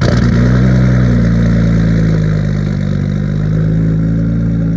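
Nissan Skyline R33 GTS-t's RB25DET turbocharged straight-six, fitted with a single big Garrett turbo, idling loud and steady.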